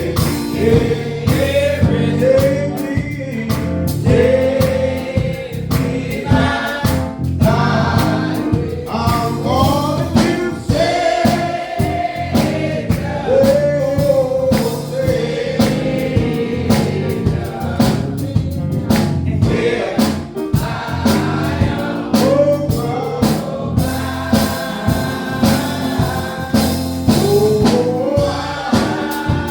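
Gospel singing by a church choir with band accompaniment and a steady drum beat.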